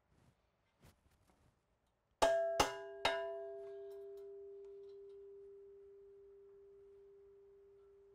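A metal part struck three times in quick succession, ringing on with one clear tone that fades slowly.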